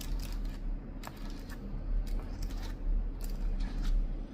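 Long fingernails clicking and tapping on a computer keyboard while typing, keystrokes coming irregularly, over a low steady hum.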